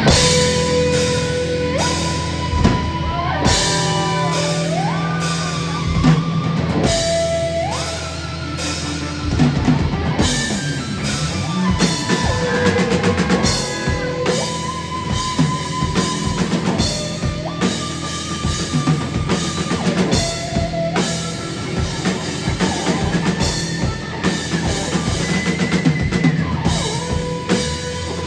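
A rock band playing with drum kit and guitar, the drums hitting steadily under a melody of long held notes that slide up and down between pitches.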